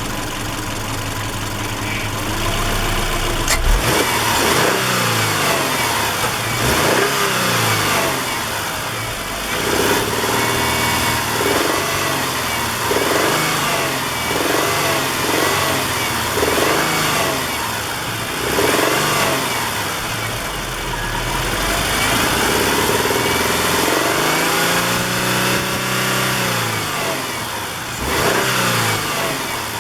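Subaru Impreza's flat-four boxer engine idling and being revved up and down again and again, with the knocking/popping that the owner cannot pin down and fears may be rod knock, though piston slap or a wrist pin are also suspected.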